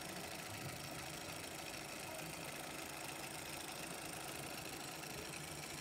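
FOXSEW FX-313 curved-needle blind stitch sewing machine running steadily as it stitches a double-faced cashmere hem.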